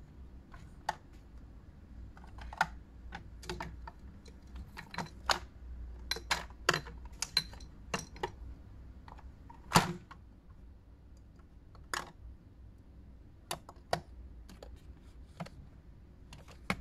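Plastic and glass skincare bottles and jars being picked up and set down among others on a shelf: irregular light clicks and knocks, with one louder knock about ten seconds in.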